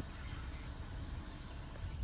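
Quiet outdoor background: a steady hiss and low rumble with a few faint bird calls.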